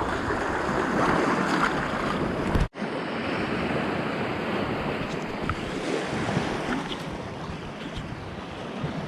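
Sea surf washing on the shore, with wind buffeting the microphone. The sound cuts out for an instant a little under three seconds in, then the same surf and wind carry on.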